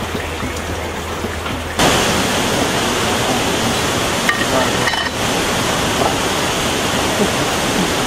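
Steady rush of running water, which jumps suddenly louder about two seconds in and then holds level.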